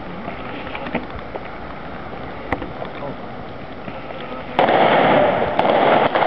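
Scattered gunshots from guns firing blanks: single sharp cracks, faint at first, then louder and more frequent from about two-thirds of the way through, when a louder steady din sets in suddenly.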